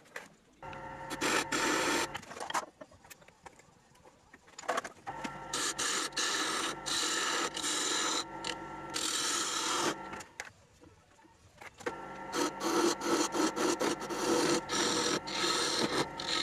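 Wood lathe running while a hand-held turning tool cuts into the spinning wood, a scratchy shaving sound in passes of a few seconds with quieter pauses between them.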